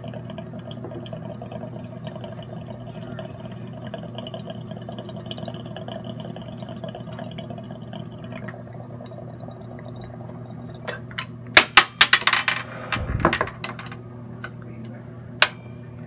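Water bubbling in a glass dab rig as a dab is inhaled through it for about eight and a half seconds, over a steady low hum. About twelve seconds in comes a run of loud coughing.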